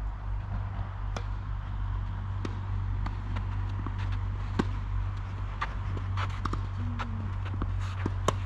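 Tennis on an outdoor court: shoes scuffing and stepping on the court surface, with sharp clicks of ball bounces and racket strikes, over a steady low rumble. The loudest strike comes near the end.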